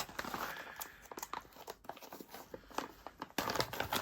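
Crinkling and rustling with many small irregular clicks: hand handling of padlock shims and the padlock.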